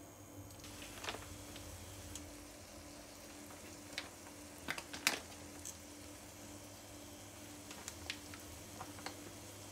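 Egg and cabbage batter sizzling gently in oil in a frying pan, with scattered sharp pops and crackles, the loudest cluster about five seconds in.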